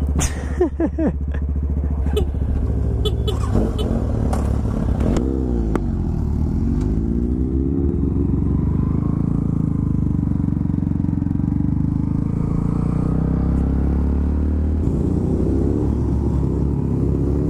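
Sport bike engine running while riding, its note rising and falling a few times between about four and eight seconds in. A few short clicks sound in the first few seconds.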